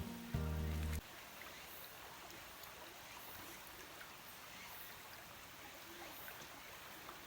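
Background music cuts off about a second in, leaving a faint, steady rush of a shallow flowing stream.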